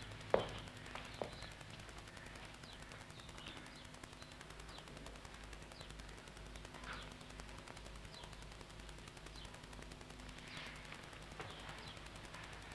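Faint quiet ambience: a sharp knock about a third of a second in, two lighter knocks just after, then a low steady background with scattered short high chirps.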